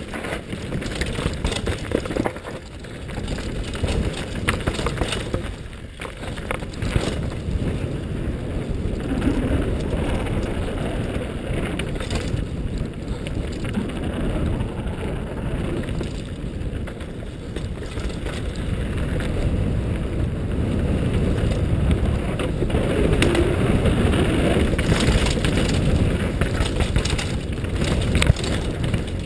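Mountain-bike descent heard from a helmet-mounted GoPro: a steady rush of wind and tyres on dirt, broken by many short knocks and rattles as the 2010 Cove Shocker full-suspension bike runs over roots and rocks. It grows louder in the second half as the speed picks up.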